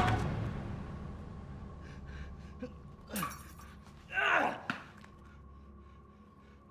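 Music dies away, then an exhausted man gasps for breath twice: a short gasp about three seconds in and a longer, louder one a second later.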